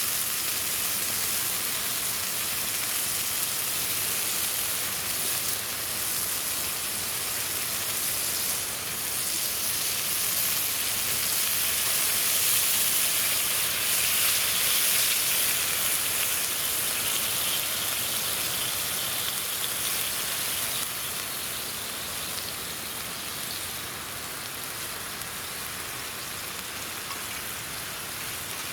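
Zabuton beef sizzling over a campfire: a steady hiss that eases slightly about two thirds of the way through.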